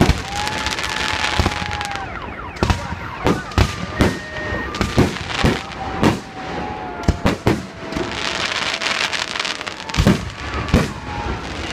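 A fireworks salute: many loud bangs of shells bursting at irregular intervals, some close together. Long whistling tones run underneath them.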